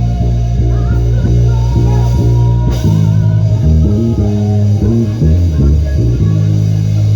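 Electric bass guitar playing a busy line of low plucked notes that change quickly, with a fainter higher melody above it and one sharp click about three seconds in.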